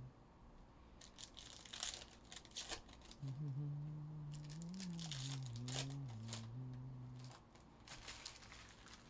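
Stacks of trading cards being handled and sorted by hand on a tabletop: a run of quick rustles, slides and taps of card edges. A low hummed tune wavers in pitch from about three to seven seconds in.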